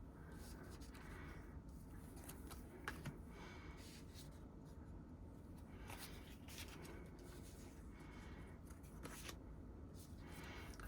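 Faint rustling and occasional soft taps of photocards and paper album inserts being handled and sorted, over a low steady hum.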